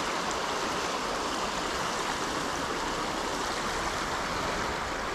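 Steady rush of creek water spilling over a jam of logs and sticks.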